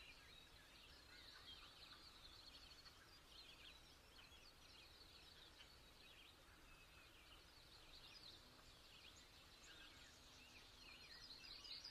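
Near silence with faint bird chirping from a background ambience track, growing slightly louder near the end.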